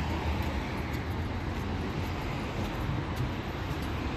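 Steady street noise: a low, even rumble of road traffic.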